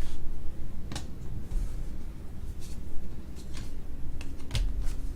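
Trading cards being handled at a table: a few short, soft clicks and rustles over a steady low hum.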